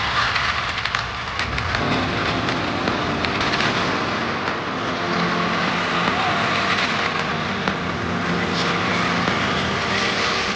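Aerial fireworks crackling and popping continuously overhead, a dense stream of small sharp cracks from bursting crackle stars, with a steady crowd din underneath.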